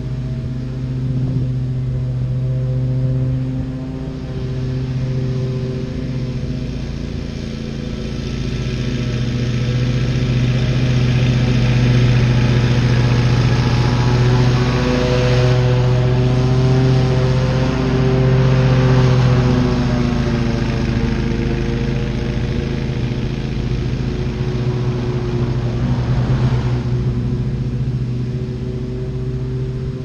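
Wright Stander stand-on commercial mower's engine running steadily under load while cutting grass, growing louder as it passes close by mid-way and easing off as it moves away.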